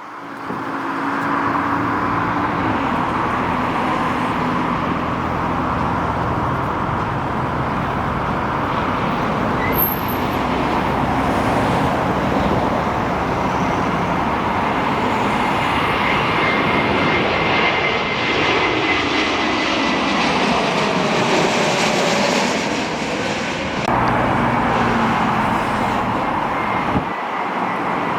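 Airliner's jet engines running as a plane passes: a steady, loud rushing noise with a faint high whine and a slow glide in pitch. The sound changes abruptly about three-quarters through.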